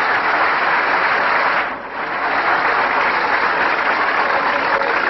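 A large crowd applauding, a dense, steady clatter that dips briefly about two seconds in and then resumes. It is heard on an old recording with the high end cut off.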